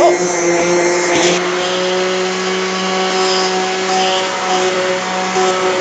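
Handheld immersion blender running steadily, its motor humming at one even pitch as the blades purée cooked carrots in a pot of soup.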